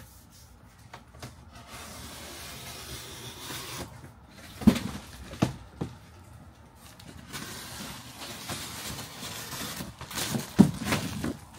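A large cardboard shipping box being handled and pulled open around a plastic-wrapped recliner: rustling and scraping of cardboard and plastic sheeting in two longer stretches, broken by several sharp knocks and thumps, the loudest about halfway through and just before the end.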